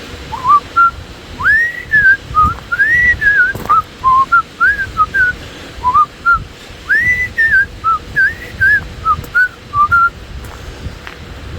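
A man whistling a tune: a run of short notes sliding up and down. He is whistling while out of breath. The whistling stops about ten seconds in.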